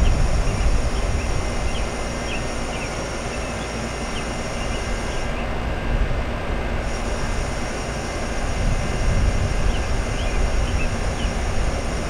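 Trane XE1000 central air conditioner's outdoor condensing unit running: steady fan noise with a low rumble, and a faint high whine that drops out for about a second and a half about five seconds in.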